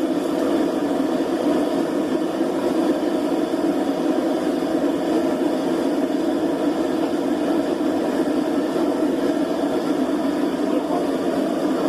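A forge running with a steady, even rushing noise, its air blast or burner going without a break.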